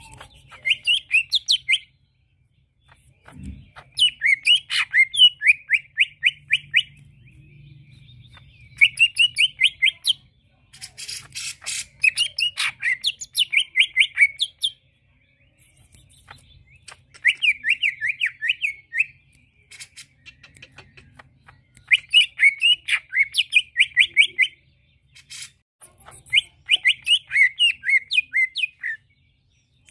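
Male green leafbird (cucak ijo) singing. About seven quick, chattering phrases of sharply repeated high notes, each one to three seconds long, with short pauses between. It is the kind of lively song played as a lure (pancingan) to set other cucak ijo singing.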